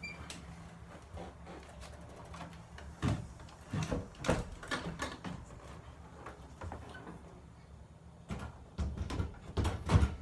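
Wooden storm-door panel being handled and fitted into its door frame: a run of knocks and clunks, one bunch about three seconds in and another near the end.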